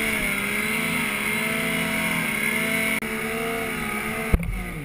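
Yamaha Nytro snowmobile's four-stroke triple engine running hard under steady throttle while the sled ploughs through deep powder, its pitch wavering slightly over a steady hiss. Near the end comes a sharp knock, and the engine backs off to a lower pitch.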